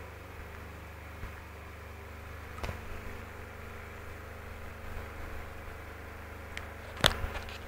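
Electric fan running with a steady buzzing hum. A sharp knock comes near the end.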